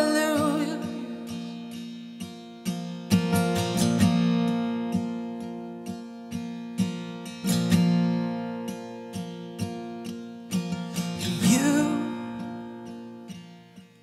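Instrumental worship music: an acoustic guitar strumming slow chords over steady held tones.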